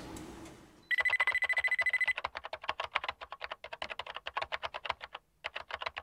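Electronic computer sound effect for android maintenance equipment starting up: a steady high beep over a rapid train of clicks, about a dozen a second, beginning about a second in. The beep stops after about a second while the clicking carries on, thinning out and breaking off briefly near the end.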